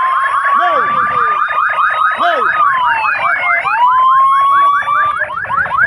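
Police sirens sounding together: one in a fast yelp of about five sweeps a second, another in a slow wail that rises, drops and rises again, cutting off shortly before the end.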